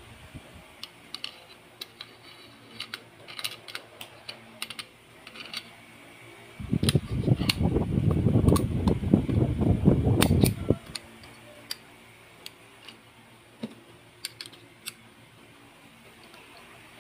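Small metal clicks and taps of 1911 pistol parts being handled and fitted together by hand. About seven seconds in there are four seconds of louder rubbing and scraping as the slide is worked onto the frame, then the scattered clicks resume.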